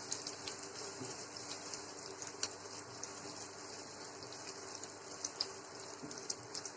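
Cumin seeds, fenugreek, cinnamon, cloves and crushed garlic sizzling in hot ghee in a pan as they roast for a tempering, a steady hiss scattered with many small crackles and pops.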